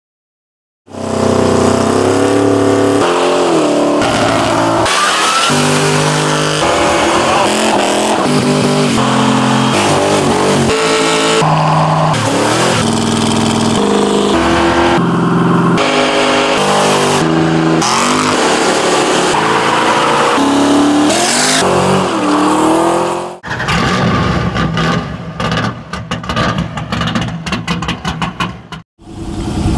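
V8 muscle car engines revving hard and tyres squealing in burnouts, the sound switching abruptly every second or so as in a fast-cut montage. In the last few seconds the sound turns choppy and broken, full of short sharp cracks.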